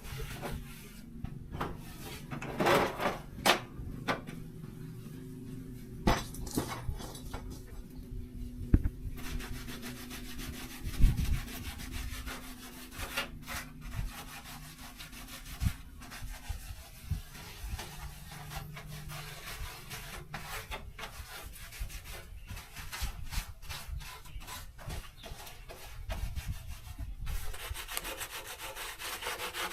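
Hand work on parts: irregular scraping and rubbing, broken by scattered knocks and clicks.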